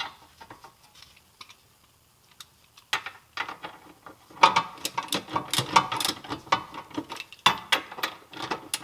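A socket ratchet clicks in quick runs as the 21 mm bolt on the rear shock absorber's lower mount is tightened. The clicking starts about three seconds in, after a few light tool clinks.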